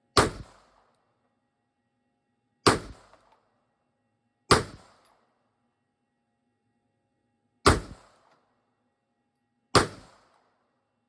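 Five single shots from a MAC-9 DS Comp 9mm pistol, fired slowly and unevenly two to three seconds apart. Each is a sharp crack with a short ringing tail.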